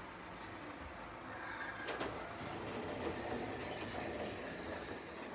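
Shopping-centre passenger lift car travelling between floors: a steady running noise of the ride, with a single click about two seconds in.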